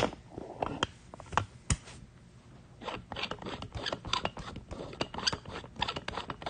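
Fingers tapping and handling the recording device right at its microphone: a run of sharp clicks and knocks. There are a few single taps at first, then dense clicking through the second half.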